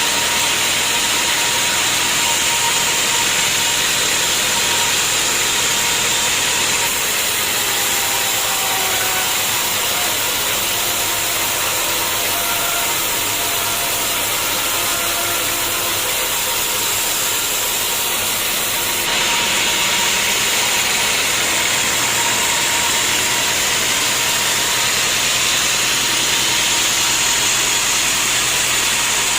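Sawmill machinery running steadily with a loud, even hiss-like noise. The sound shifts abruptly about seven seconds in and again about nineteen seconds in.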